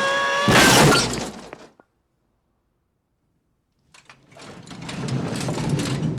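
Heavy metal tool chest falling down stairs: a loud crash about half a second in that dies away, then after a two-second silence a long rumbling clatter of tools and metal that swells and fades near the end.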